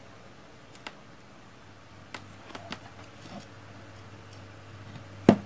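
A few light clicks and taps from handling a plastic breadboard and soldering iron, then one sharp knock near the end as the breadboard is set down on the cutting mat. A low hum runs steadily underneath.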